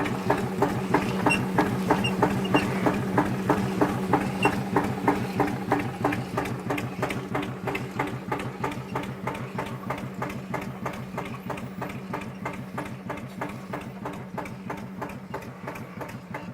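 Tractor engine idling with a steady, even beat of pulses, growing gradually fainter.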